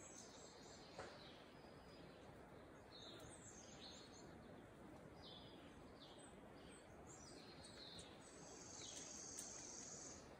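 Faint wild songbirds chirping: short high falling notes every second or so, and a longer high note held for about a second and a half near the end, over a quiet steady hiss of background noise.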